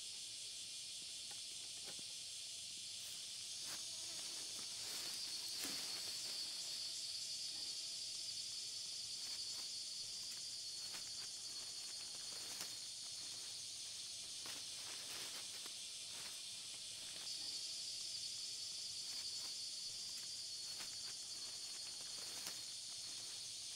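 Forest insects keeping up a steady high-pitched drone that swells louder about four seconds in and again about two-thirds of the way through, with scattered light clicks and rustles.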